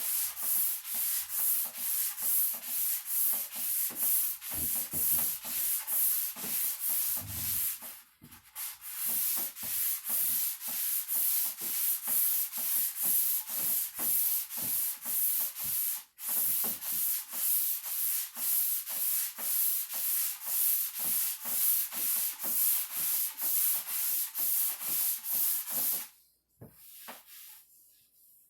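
Sandpaper rubbed back and forth on the cedar chest's wooden top, in even strokes about three a second, with two brief pauses, stopping near the end.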